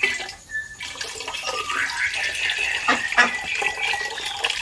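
Water sloshing and splashing in a plastic bucket of water holding live catfish as its lid is lifted, with ducklings peeping over it.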